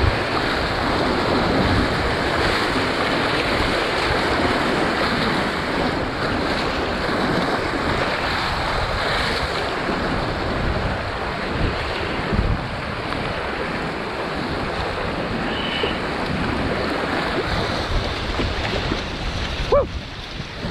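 Steady rushing and splashing of river whitewater as a kayak runs a rapid, waves breaking against and over its bow. The noise eases briefly near the end.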